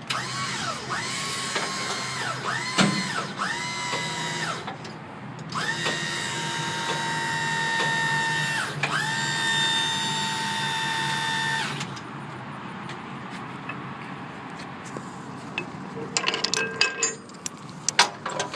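The motor of a powered chain tensioner whines as the chains holding a Moffett piggyback forklift are released from pressure. It runs in several short spurts that rise and fall, then in two steadier runs of about three seconds each. A few metallic clanks follow near the end.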